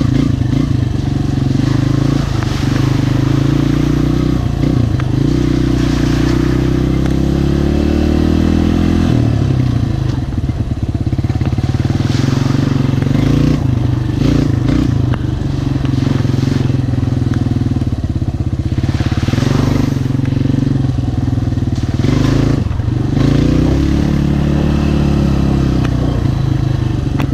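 Yamaha Raptor 125 ATV's single-cylinder four-stroke engine running under way, its pitch rising and falling as the throttle opens and closes.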